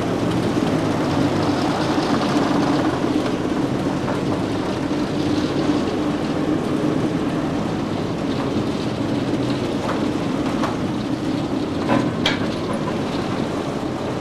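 British Rail Class 08 diesel shunter's engine running steadily as the locomotive moves about the shed yard, with a few sharp knocks near the end.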